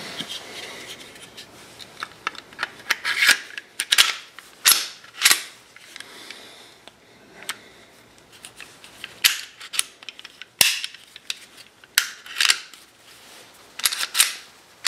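Smith & Wesson Shield 9mm pistol being reassembled: the steel slide, holding the barrel and recoil spring, is fitted back onto the frame, giving sliding scrapes and a series of sharp metal clicks, in two busy spells with a quieter stretch between.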